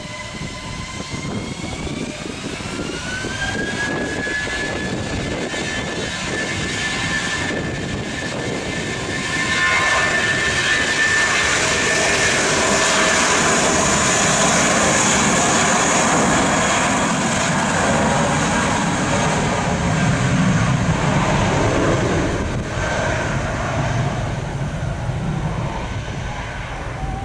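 Airbus A320-family airliner's twin jet engines spooling up to takeoff thrust: a rising whine over the first few seconds, then a loud steady roar from about ten seconds in that eases off near the end as the jet rolls away down the runway.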